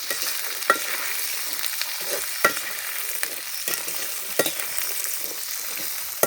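Shallots frying in hot coconut oil with mustard seeds, ginger and garlic: a steady sizzle, with the stirring spoon scraping and clicking against the pan about once a second as they are sautéed.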